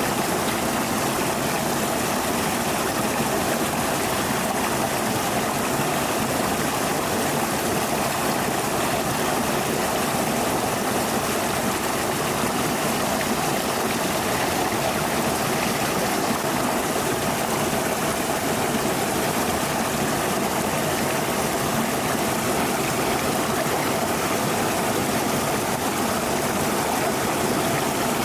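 Flowing stream water rushing steadily, with no pauses or separate splashes.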